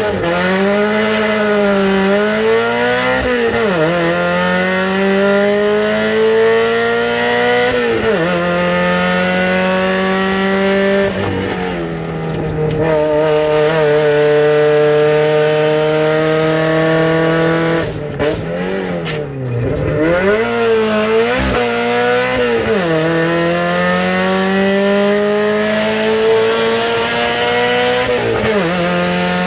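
Competition car's engine heard from inside the cabin, accelerating hard up the gears. Its pitch climbs and then drops at each upshift, and it lifts and blips on the downshifts into corners around 12 and 19 seconds in.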